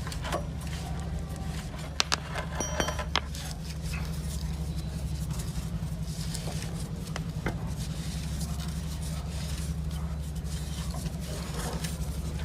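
Steady low machine hum with a few sharp clinks and taps of hard objects, a short ringing run of them about two to three seconds in and another near the middle.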